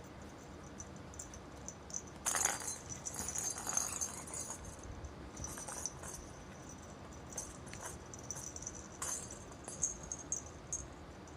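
A kitten batting and chasing a small cat toy that rattles in short irregular bursts. The busiest stretch comes about two seconds in, with another flurry near the end.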